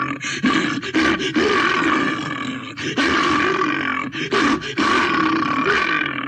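A bear growling and roaring aggressively: a run of long, rough growls, each a second or more, broken by short pauses for breath.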